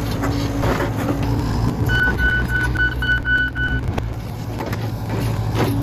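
John Deere 85G compact excavator's diesel engine running steadily while the machine tracks. Its travel alarm beeps about four times a second for roughly two seconds, starting about 2 s in, with a few knocks from the undercarriage.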